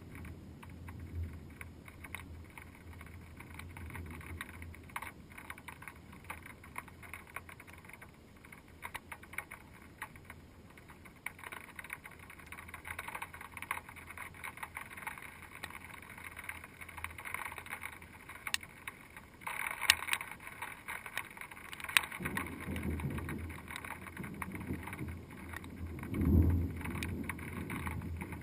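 Rain pattering on a GoPro Hero2's waterproof housing, heard muffled through the case as a steady hiss with many small sharp ticks, two of them sharper about two-thirds of the way in. A low rumble swells near the end.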